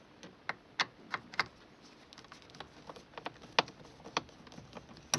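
A screwdriver undoing the screws of a plastic steering column shroud from below: a scattered run of light, sharp clicks and ticks at irregular intervals.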